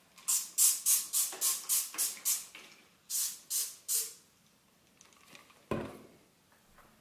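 Trigger spray bottle of Flash Bathroom cleaner squirted over and over: about eight quick hissing sprays, then three more, each pump a short burst of mist. A single knock follows near the end.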